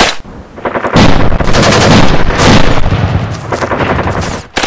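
Rifles firing rapidly into the air. The shooting drops away just after the start, then picks up again about a second in as an uneven run of shots with a heavy low rumble, which thins out near the end.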